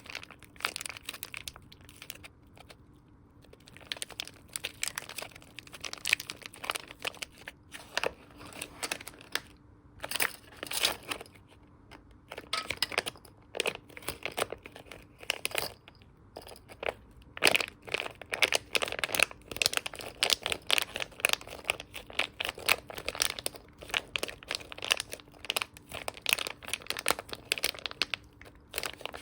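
Squishy toys being squeezed and handled, making dense, irregular crackling with a few short pauses.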